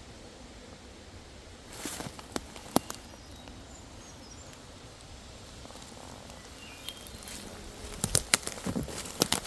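Footsteps on a leaf-littered forest floor, crunching and snapping twigs in two short spells: about two seconds in, and again near the end.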